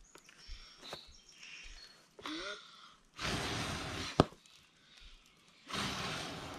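Two long breathy rushes of air, each about a second, from someone blowing on a campfire's smoking embers. One sharp crack between them.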